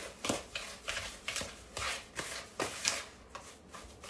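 Utensil stirring a thick mix of sugar, flour and melted butter in a bowl, with repeated short scraping strokes about two or three a second that thin out near the end.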